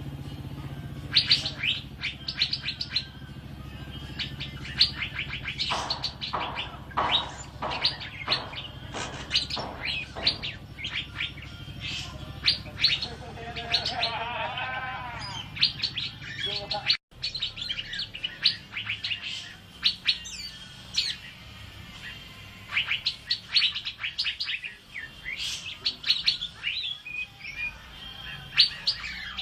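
Asian fairy-bluebird (cucak biru) singing actively: quick runs of sharp, high whistled notes and chirps, with a momentary cut-out about halfway through.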